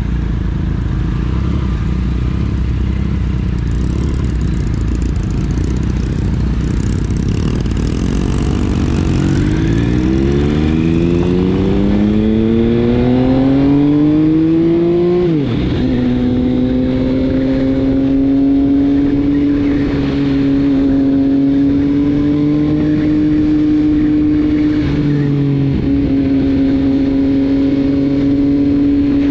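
Triumph motorcycle engine heard from the bike with wind noise: it pulls away with a low rumble, then accelerates with a steadily rising note. Its pitch drops sharply at a gear change about fifteen seconds in, and it then holds a steady cruising note, with another brief dip near the end.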